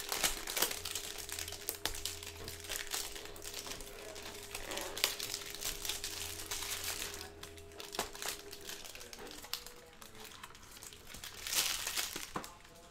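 Clear plastic shrink-wrap crinkling as it is peeled and crumpled off a cardboard trading-card hanger box, a dense run of quick crackles.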